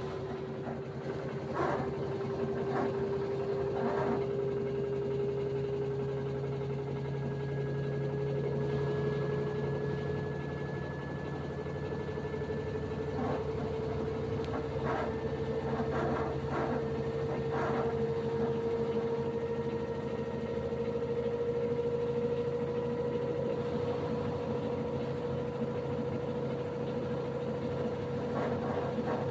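LG Inverter Direct Drive washing machine on its spin cycle: a steady motor whine that rises slowly in pitch over a low hum. Scattered knocks come a few seconds in, again in the middle, and near the end. This is the extraneous noise the machine makes during spin.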